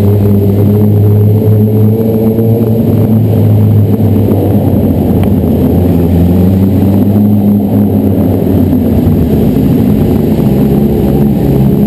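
Sport bike engine running steadily under the rider, heard from the rider's own helmet, its note drifting a little up and down as the throttle changes.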